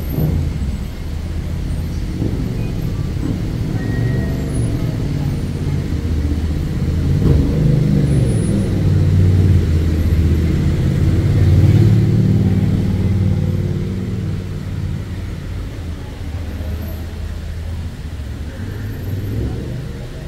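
Motor vehicle engine running in road traffic, swelling to its loudest about twelve seconds in and then fading away.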